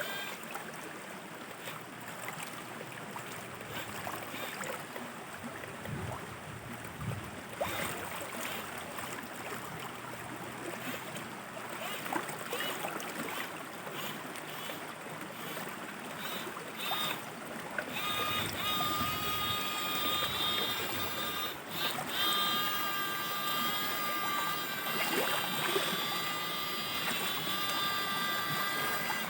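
Shallow river water running and trickling, with small splashes and knocks. About two-thirds of the way in, a steady high whine made of several tones joins the water and carries on over it.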